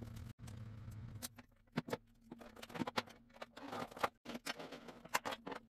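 Kitchenware being handled and set onto a metal shelving rack: scattered sharp knocks and clatters, roughly one every second, over a low steady hum that fades after the first second.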